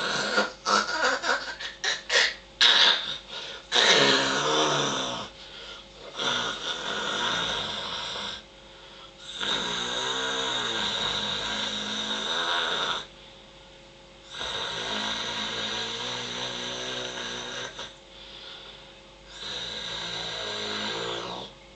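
A sleeping person snoring. There is a quick run of short snorts in the first few seconds, then long drawn-out snores of about three to four seconds each, with short pauses between them.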